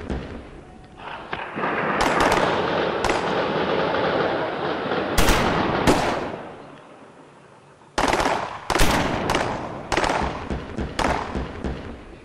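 Airsoft guns firing in rapid bursts. Two sharp bangs come about halfway through, amid several seconds of rushing noise.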